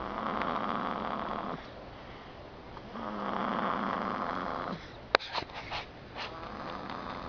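Snoring: two long snoring breaths about three seconds apart, then a fainter one near the end. A few sharp clicks come about five seconds in.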